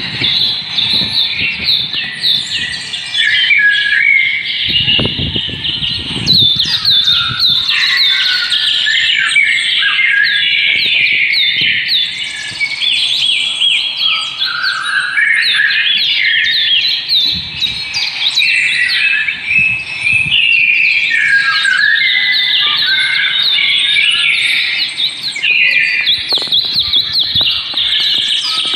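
A dense chorus of many small birds chirping and twittering together without a break. A brief low rustle comes about five seconds in.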